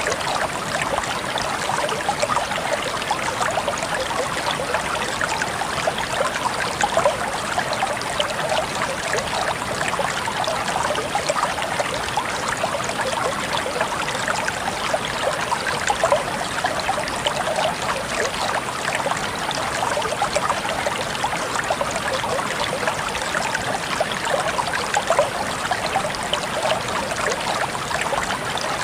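A river or stream flowing and babbling over stones, a steady splashing rush of water.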